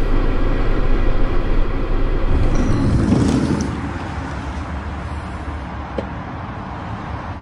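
Steady traffic rumble that swells about three seconds in and then eases off.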